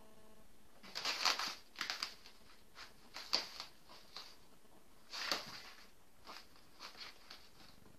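Kittens scrambling in a cardboard box, their claws scratching and scuffing on the cardboard, paper and blanket. It comes as a series of short, irregular scratchy rustles, loudest about a second in and again about five seconds in.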